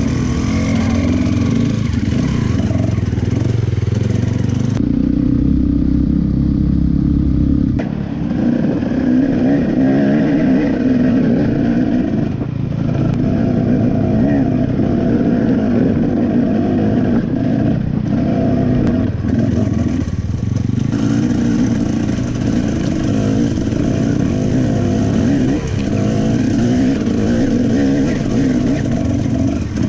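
Dirt bike engine running hard and revving up and down under load on an enduro ride, with a couple of abrupt changes in the sound where different riding clips join.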